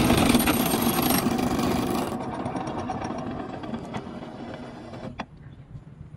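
Fishing boat's engine running, dying away steadily as the boat slows and coasts on calm water. A single sharp click about five seconds in.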